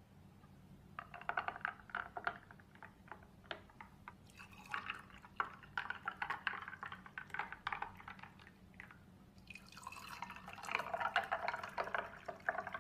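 Watermelon juice poured from a jug into three ice-filled glasses in turn, splashing and trickling over the ice cubes and soaked sabja seeds. There are three separate pours of a few seconds each.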